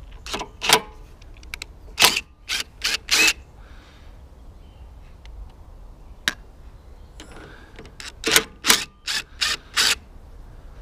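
Cordless drill with a long extension bar and socket run in short trigger bursts of a fraction of a second each, undoing the bolts that hold a lawnmower's airbox to the carburettor: two bursts at the start, four around two to three seconds in, and five more near the end, with a single click about six seconds in.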